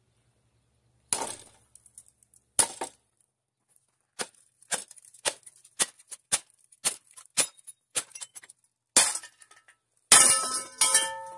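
Hard metal-on-metal strikes, a couple at first and then a steady run of about two a second, ending in a clattering crash with a ringing clang as parts of the outboard motor are knocked or dropped.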